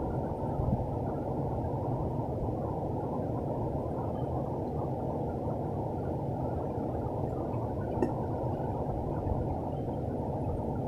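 Steady rush of river water flowing around boulders, with one brief faint click about eight seconds in.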